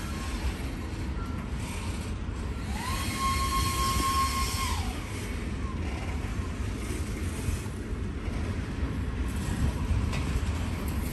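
Freight train rolling past with a steady low rumble of wheels on rail. About three seconds in, a high tone slides up, holds for about two seconds, then slides down.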